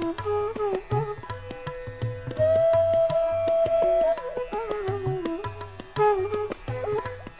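Instrumental background music in an Indian classical style: a bending melody line with a long held note in the middle, over a steady hand-drum rhythm.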